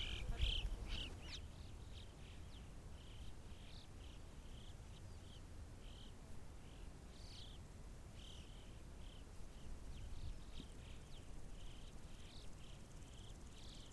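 Faint, scattered chirps of small birds, short notes at irregular intervals with a few quick upward glides, over a steady low rumble.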